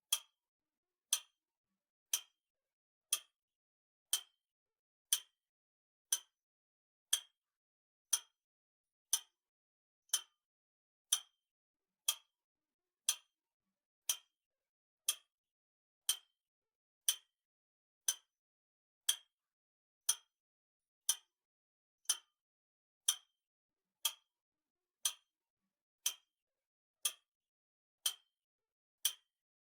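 Clock ticking sound effect: one sharp, crisp tick exactly once a second, evenly spaced, with silence between the ticks, marking the seconds of a countdown.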